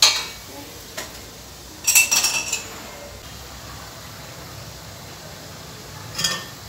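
Metal utensil clinking against a stainless steel frying pan while a chapati cooks: a sharp clink at the start, a quick rattle of clinks about two seconds in, and another clink near the end, over a low steady hiss.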